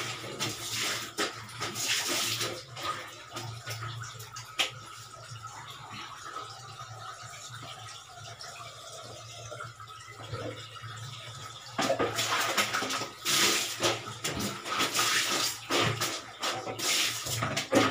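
Water splashing as it is scooped and poured with a plastic dipper into laundry buckets, loudest in the first few seconds and again from about twelve seconds in, with a quieter stretch between.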